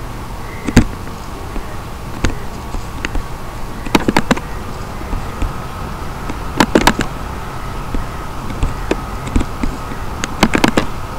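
Computer mouse clicks, about a dozen, several coming in quick pairs and clusters as double-clicks, over a steady background hiss with a faint high whine.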